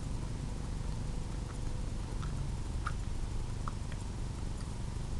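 A person chewing a gummy fruit snack with a juice-filled centre, mouth closed: a few faint wet clicks, two clearer ones around three seconds in, over a steady low hum.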